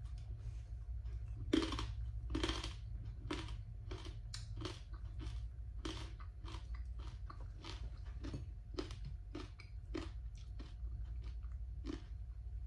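A person chewing and crunching food, a crunch roughly every two-thirds of a second, the loudest two about two seconds in, over a steady low hum.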